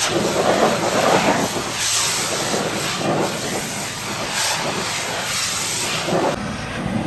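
Pressure washer spray hissing against a surface, its hiss swelling and fading as the jet moves, with an abrupt change in the sound about six seconds in.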